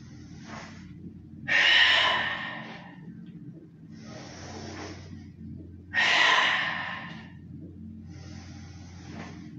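A man breathing hard in a steady rhythm through a Pilates rolling exercise: a quieter in-breath, then a loud, forceful out-breath, blown out on each roll back up. Two loud out-breaths and three in-breaths, one cycle about every four seconds.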